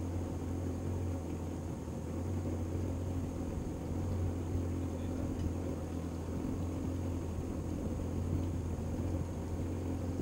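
Boat's outboard motor idling, a steady low hum.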